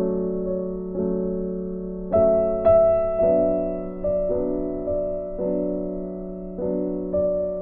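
Background piano music: soft struck chords that fade away, a new one about every second.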